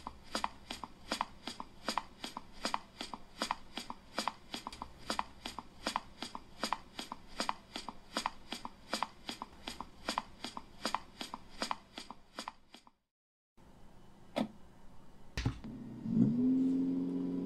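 Cartoon footstep sound effect: even clicking steps, about three a second, that stop after about thirteen seconds. Then come a click and a thud, and near the end a car engine starts, rising in pitch and then running steadily.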